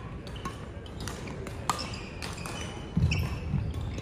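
Badminton rackets striking the shuttlecock, with sneakers squeaking on the wooden court floor. Several sharp hits and short squeaks, and a heavy footfall about three seconds in as a player lunges.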